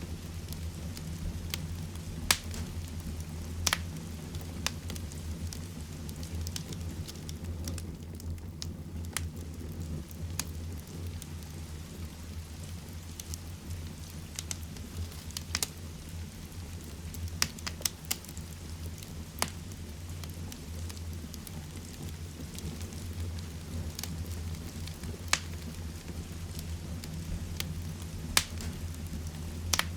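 Heavy rain hissing steadily with a low rumble, while a wood fire in a fireplace crackles, with sharp irregular pops every second or two.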